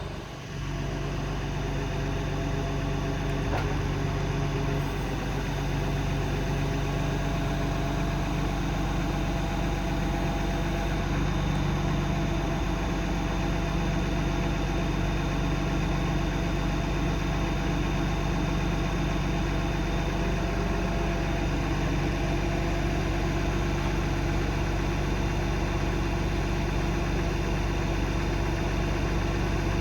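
Cummins 8.3 ISC six-cylinder diesel engine of a Peterbilt 335 idling steadily.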